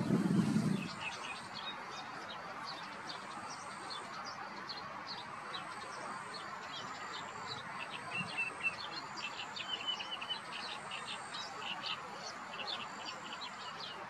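Birds chirping in a dense, continuous background chorus of short, high notes, some in quick runs, with thin, steady, very high whistles. A low rumble fades out about a second in.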